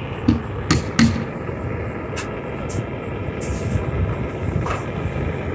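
A steady low rumble of background noise, with a few sharp clicks and taps as the soldering iron and solder are set against the sheet-metal flashing, the two loudest close together about a second in.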